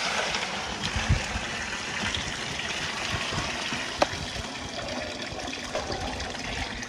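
Rinse water pouring in a steady gush from a plastic basin of washed beans into a plastic bucket as the beans are drained. A brief sharp knock about four seconds in.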